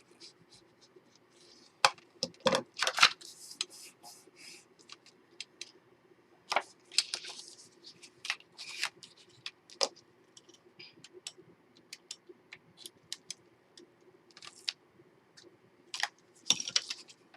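Scattered clicks, taps and brief paper rustles as chipboard and paper pieces are handled and pressed down on a work table, with a faint steady hum underneath.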